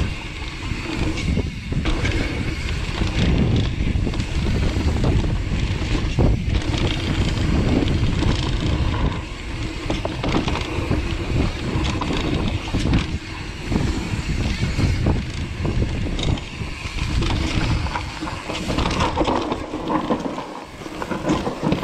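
YT Capra enduro mountain bike rolling down a dirt trail: Schwalbe Nobby Nic knobby tyres on dirt and leaves, with the bike rattling and knocking over bumps. Wind buffets the microphone.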